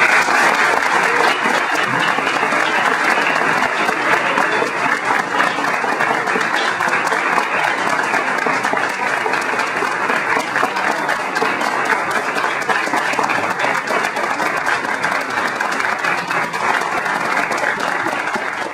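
Audience applauding: sustained, steady clapping from many hands in a hall.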